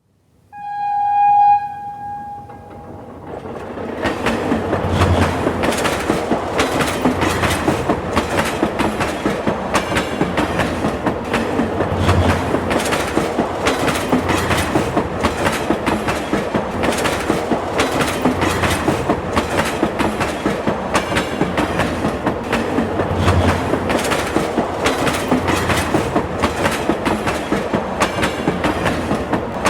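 A train sounds one short horn blast, then runs past with a steady rumble and a regular clickety-clack of its wheels over the rail joints.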